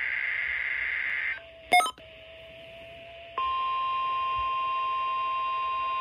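Midland weather radio receiving a NOAA Weather Radio Required Weekly Test: a SAME digital header burst, a harsh data screech, ends about a second and a half in, a short loud beep follows, and from about three and a half seconds a steady high tone begins and holds.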